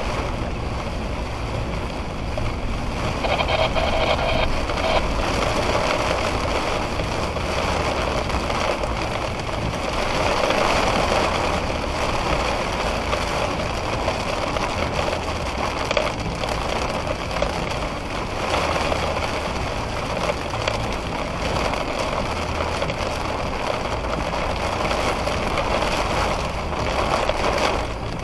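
Rain pouring down in a thunderstorm: a steady rushing noise that swells and eases every few seconds.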